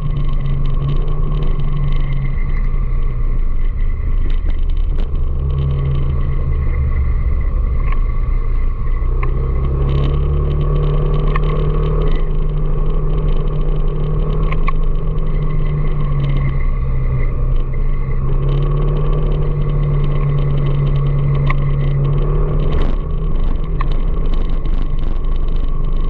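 Motorcycle engine running while riding through city traffic, its low hum shifting pitch a few times as the speed changes, over a steady rumble of wind and road noise.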